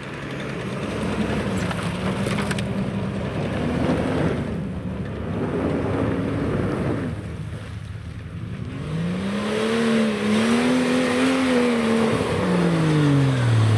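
Off-road 4x4 engines driving a rutted, muddy trail. The engine note holds steady at first, then in the second half the revs rise and fall a couple of times, dropping off near the end.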